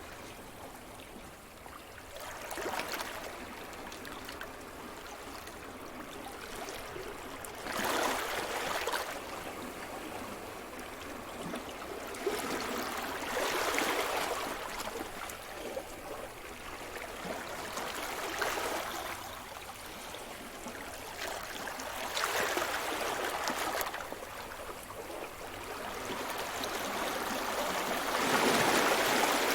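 Sea surf: waves breaking and washing up the shore, a fresh surge of rushing water about every four to five seconds, the loudest near the end.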